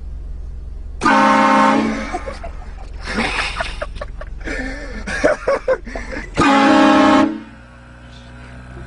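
Car-mounted train horn blasting twice, a loud chord of several notes: once about a second in and again about six and a half seconds in, each blast under a second long.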